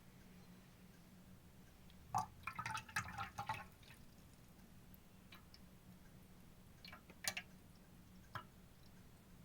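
Small hard clinks of a Yixing clay teapot being handled, likely its lid touching the pot: a quick flurry of light clinks, then two more single clinks further on.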